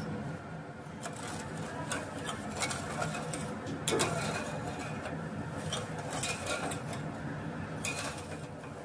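Steel spoon stirring sugar and water in a steel pot, repeatedly scraping and clinking against the pot's sides and bottom. The sugar is not yet dissolved: this is the start of a sugar syrup.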